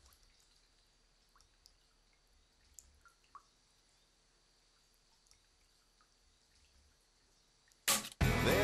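Water dripping from a tap, a few faint single drops spread over several seconds. Loud music cuts in suddenly near the end.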